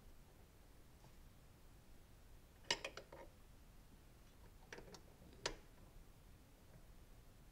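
Mostly near silence, broken by small sharp metallic clicks: a quick cluster of about four a little under three seconds in, a couple more near five seconds and a last one shortly after. They come from hands and a tool working at the brass fuel line fittings of the fuel injection.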